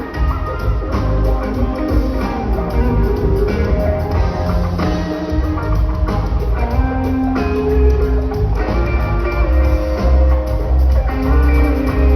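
A live band playing jam-rock, with electric guitar lines over a heavy, steady low end of bass and drums.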